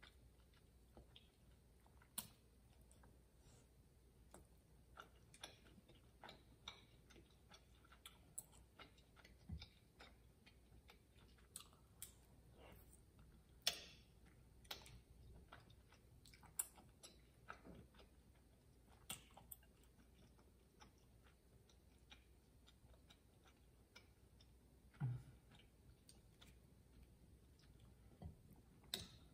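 Faint eating sounds: scattered wet mouth clicks from chewing soft, chewy rice cakes and glass noodles, a handful of them louder, over near silence.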